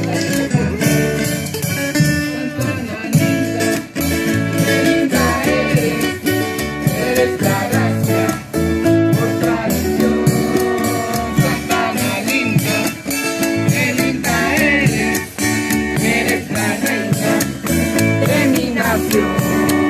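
Traditional Salvadoran folk music played live: strummed acoustic guitars, maracas and a drum keeping a steady beat, with a voice singing over them.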